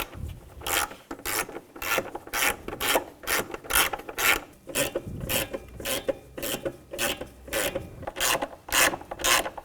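Hand ratchet driving in the hood latch's mounting bolts: a steady run of short, rasping click bursts, about two to three a second, one for each back-swing of the handle.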